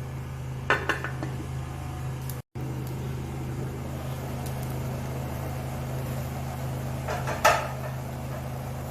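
A metal pot and lid clinking twice, once about a second in and again near the end, as the pot is covered and later uncovered. A steady low hum runs underneath.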